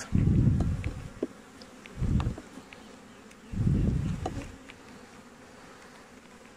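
Honeybees buzzing over an open hive, broken by three short, low muffled rumbles on the microphone (at the start, about two seconds in, and about three and a half seconds in) and a few light clicks.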